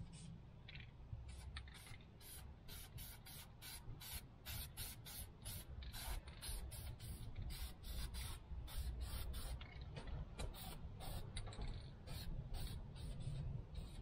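Aerosol spray-paint can hissing in many quick short bursts, about two a second, over a low steady rumble. This fits touch-up painting of the tractor wheel.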